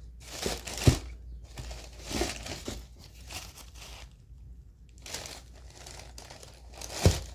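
Paper packing in a shoe box rustling and crinkling in several bursts as new running shoes are unboxed, with a sharp knock about a second in and another near the end.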